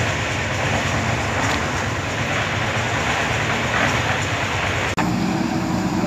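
Diesel engine of a JCB 3DX backhoe loader running hard under load as the backhoe digs soil, a loud, dense rattling sound. About five seconds in it breaks off to a steadier engine hum with a clear low tone.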